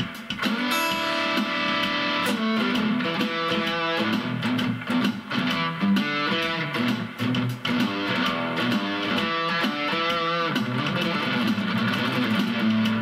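Acoustic guitar played through a Zoom G1 Four effects pedal into a small Roland Cube-10 amp set to JC Clean with a little reverb: picked single-note lines over lower sustained bass notes.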